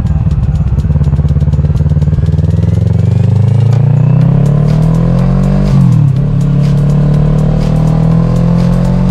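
Kawasaki Z650 parallel-twin engine through a Dominator aftermarket exhaust, pulling under acceleration: the note climbs steadily for about five seconds, drops sharply at an upshift about six seconds in, then climbs again.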